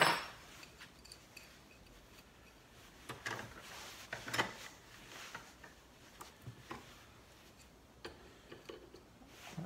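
Scattered metal clinks and knocks from hands working a bench vise and small brass air fittings. A sharp clank right at the start is the loudest, followed by lighter knocks, two stronger ones around three and four and a half seconds in.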